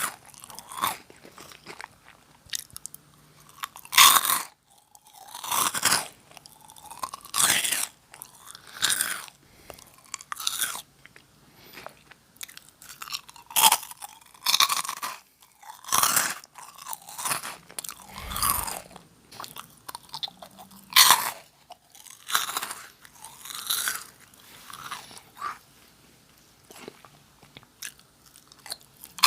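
Close-miked crunching and chewing of Nongshim Jagalchi, a crisp fried snack: sharp crunches roughly every one to two seconds with softer chewing between them.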